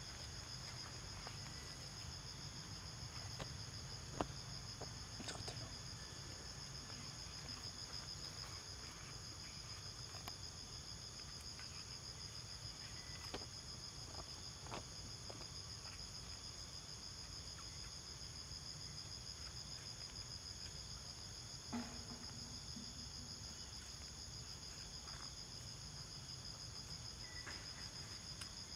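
Steady high-pitched chorus of insects, with a few faint clicks, the sharpest about four seconds in.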